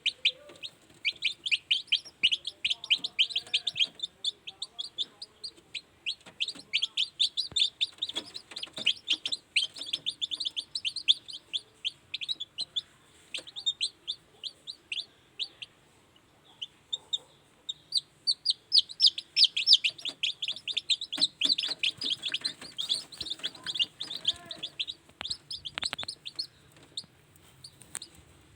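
Newly hatched kampung chicks peeping: rapid runs of short, high-pitched cheeps, thinning out for a few seconds in the middle before picking up again.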